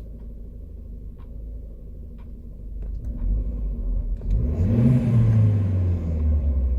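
Volvo B230FK 2.3-litre turbocharged four-cylinder engine idling roughly, then revved once about halfway through, its pitch rising, holding briefly and falling back toward idle near the end.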